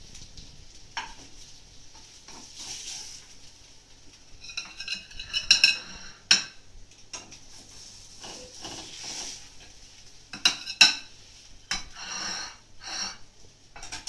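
A slotted metal turner scraping and clanking against a frying pan while potato pancakes fry, with a faint sizzle underneath. Several sharp, ringing metallic clanks stand out, the loudest about five and a half and eleven seconds in.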